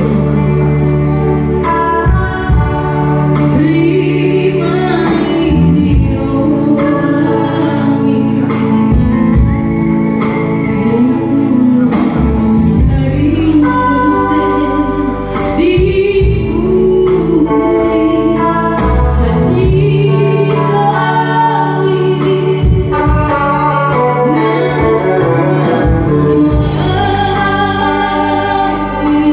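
A woman singing a Batak-language song with band accompaniment of keyboard and bass.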